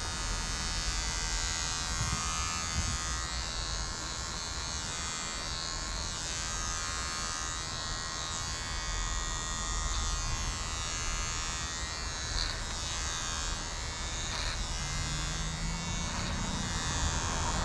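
Electric hair clippers buzzing steadily as they cut a man's hair.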